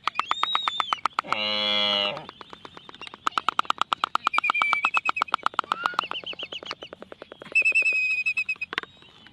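Wild animal calls: rapid pulsing trills alongside wavering bird-like whistles, with a short pitched call about one and a half seconds in.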